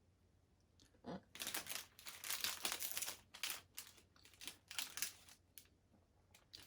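Plastic snack packaging crinkling and rustling as it is handled, in a quick run of bursts that fades out near the end.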